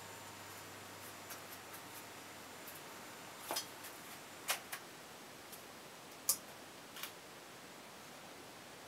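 A handful of short, light clicks and taps, scattered irregularly over a steady faint hiss, the loudest about six seconds in; no machine is running.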